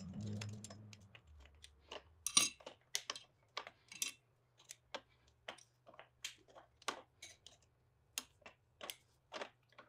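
Light metal clicks and taps, roughly one or two a second, from an aluminium split clamp ring and its cam lever being handled and worked on a drill press's steel column, after a low rumble in the first second.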